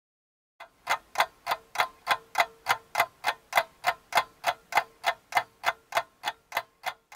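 Clock ticking sound effect: sharp, even ticks about three a second, starting about half a second in.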